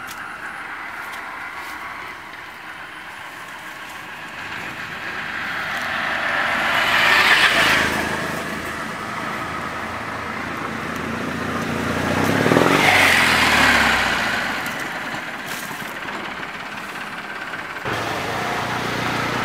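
Motor vehicles passing by, twice: each one swells up and fades away, the first peaking about seven seconds in and the second, deeper one about thirteen seconds in.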